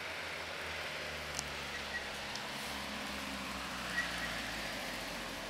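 Low hum of a car engine out on the road, fading out about four seconds in, over a steady outdoor hiss, with a couple of faint short chirps.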